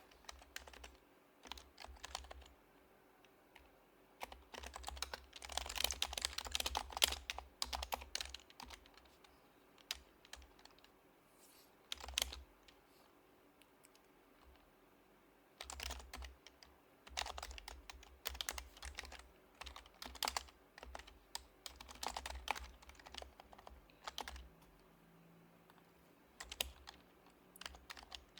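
Typing on an HHKB Professional HYBRID Type-S keyboard, its silenced Topre capacitive keys making soft muted clacks in quick runs with pauses between them. The busiest, loudest run comes about four to eight seconds in, and the typing thins to a few strokes near the end.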